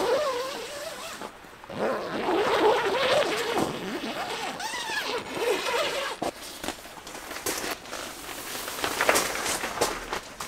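Clear plastic film being pulled and stretched across a tent window, rustling and giving wavering squeaks in the first few seconds, then crinkling and ticking.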